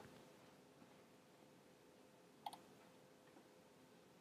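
Near silence with a faint steady hum, broken once by a soft double click about two and a half seconds in.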